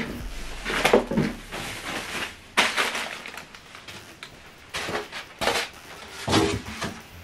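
Unboxing noise: an irregular series of knocks, scrapes and rustles as a soundbar is shifted on a table and a cardboard box and its packing are handled.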